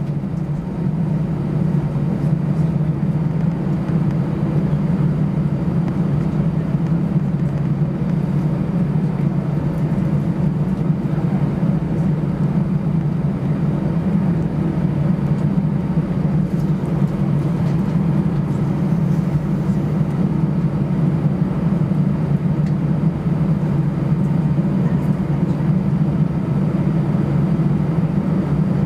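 Cabin noise inside an Airbus A320-214 taxiing, heard at a window seat over the wing: a steady low drone of the CFM56 engines at taxi power with the rumble of the aircraft rolling on the taxiway. It builds slightly over the first second, then holds even.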